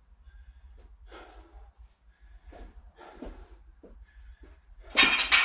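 A man breathing hard in and out, about a breath every second, winded after a set of dumbbell exercises. Near the end come two loud metallic clanks close together.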